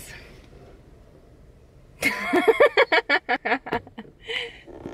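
A quiet low hum, then about two seconds in a burst of laughter and chuckling in quick, breathy pulses.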